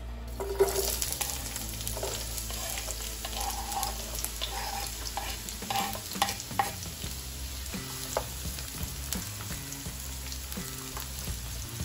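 Chopped onion and scallion sizzling in hot vegetable oil in a nonstick frying pan, starting about half a second in as they hit the oil. Short taps and scrapes come from the wooden spatula and cutting board against the pan as the vegetables are pushed in and stirred.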